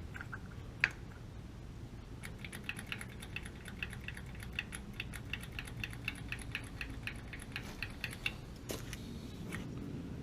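A rapid, even run of small mechanical clicks, about five a second for roughly six seconds, with a single sharper click about a second in and another near the end.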